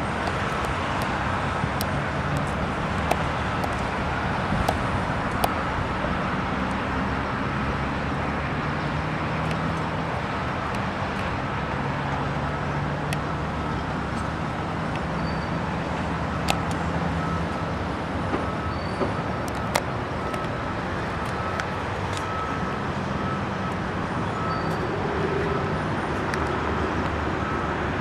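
Steady road traffic noise from freeway vehicles passing, with a low engine hum coming and going and a few sharp clicks or knocks.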